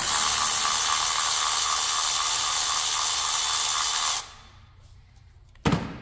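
Handheld power tool running steadily for about four seconds while removing the ignition coil's hold-down bolt, then stopping abruptly. A single sharp knock follows near the end.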